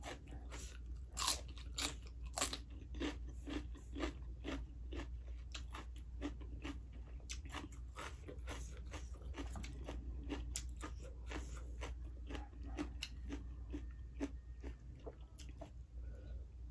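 Close-up crunching and chewing of raw vegetables, a rapid run of crisp crunches with two louder bites in the first few seconds.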